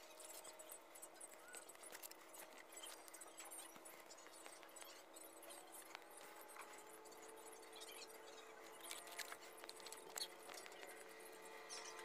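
Near silence: faint soft clicks and rubbing from hands twisting thin twine into a cord, over a faint steady hum.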